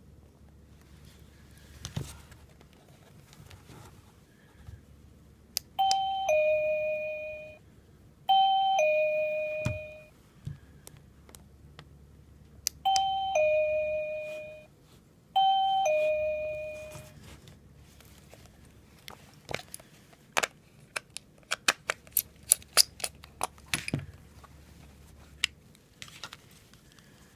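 Wireless call chime sounding a two-note ding-dong, a short higher note falling to a longer fading lower one. It rings four times in two pairs, each chime preceded by a brief click. Near the end comes a quick run of sharp clicks.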